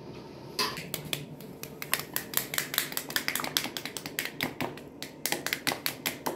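Quick, irregular crisp clicks and snaps, about four or five a second, as pomegranates are broken apart by hand and their arils pulled loose into a plastic basin.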